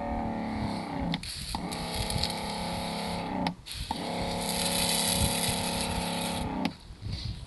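Electric pump of a battery-powered portable pressure washer (Suhler Jagdhütte Washer) humming in three runs, cutting out briefly twice, with a slight drop in pitch as each run starts. During the last run a hiss of water spray comes in.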